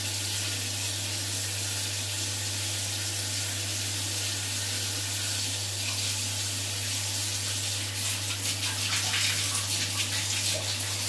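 Bath tap running, water pouring steadily into an empty bathtub, growing more splashy and uneven over the last few seconds.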